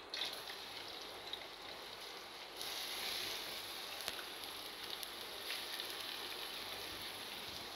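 Sliced red onions sizzling as they are dropped into hot oil in a pan: a steady frying hiss with small crackles, which steps up about two and a half seconds in.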